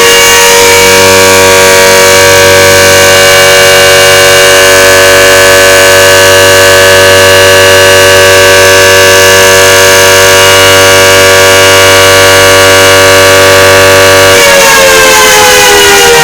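Loud emergency-alert siren. It finishes rising at the start, then holds one steady wail with a low hum beneath it. About fourteen seconds in it begins to wind down in pitch.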